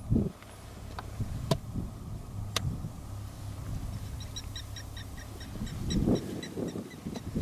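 A vehicle engine running with a steady low rumble, a few sharp clicks in the first half, and a bird giving a rapid series of short high notes, about four or five a second, through the second half.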